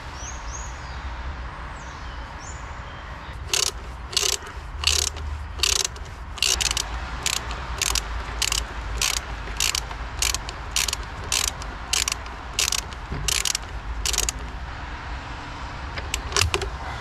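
Ratchet wrench clicking as the battery's positive terminal clamp nut is tightened, about two short clicks a second with the rhythm of the back-swings, stopping after ten seconds or so and followed by a couple of last clicks near the end.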